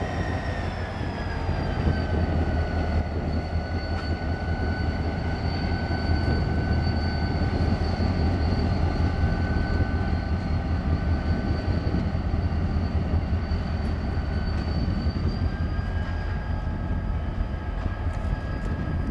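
Diesel locomotive running as it moves slowly away: a steady low engine drone with a high whine that dips slightly in pitch about two seconds in and rises again near the end.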